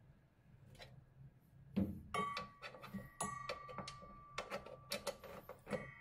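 A ratchet wrench on a washing machine's drive pulley bolt: a knock about two seconds in, then a run of irregular metallic clicks and clinks with a ringing metal note, as the bolt is tightened and the ratchet is taken off.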